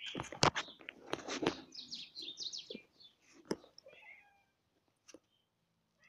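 Domestic cat meowing, in a run of short, high calls, with a few sharp knocks in the first second and a half.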